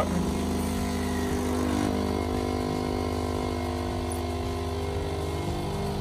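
Anko espresso machine's pump buzzing steadily while it pushes water through the ground coffee to brew an espresso shot.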